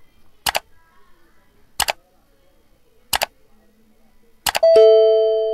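Subscribe-button animation sound effects: four sharp mouse-click sounds about 1.3 seconds apart, then a bell-like chime near the end that rings and fades slowly.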